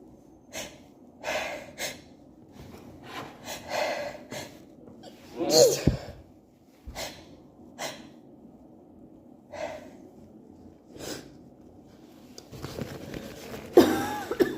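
A woman's allergy sneezing fit: two loud sneezes, one about five and a half seconds in and one near the end, with shorter breaths and sniffs between them.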